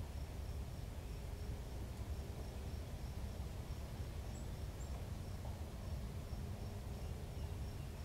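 An insect chirping steadily at a high pitch, about four chirps a second, over a low background rumble.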